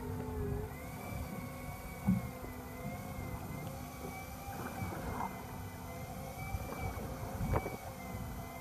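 Fishing boat's engine running steadily, its hum gently wavering over a low rumble, with two sharp knocks, about two seconds in and near the end.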